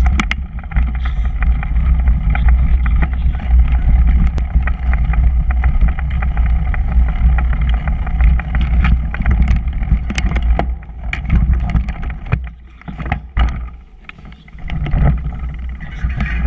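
Mountain bike riding fast over a dirt trail: a steady rumble of wind buffeting the microphone, with the rattle and knocks of the bike and tyres over bumps and roots. It eases for a couple of seconds about three-quarters of the way through.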